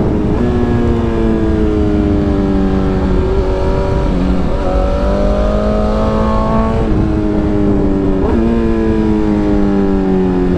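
BMW S1000RR's inline-four engine running at road speed. Its pitch drifts slowly down and up, with a few sudden jumps, under heavy wind rush on the microphone.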